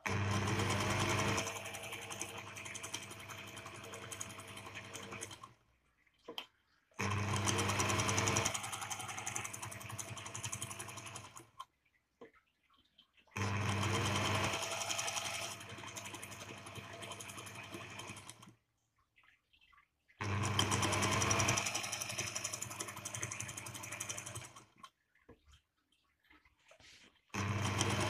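Singer 201K electric sewing machine stitching through a folded strip of leather, running in spells of about five seconds with short stops between them. It starts up five times, each time with a rising motor whine. The last run begins near the end.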